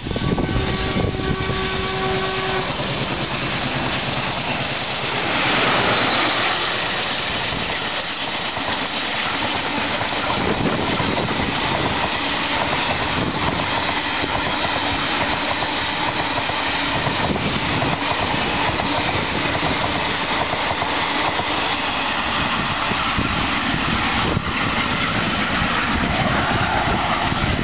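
WDM-3A diesel locomotive, its ALCO 16-cylinder turbocharged engine at full throttle, sounds a steady horn for about two and a half seconds as it approaches. The engine grows loudest as it passes about five seconds in, followed by the long steady rolling of the express coaches going by on the rails.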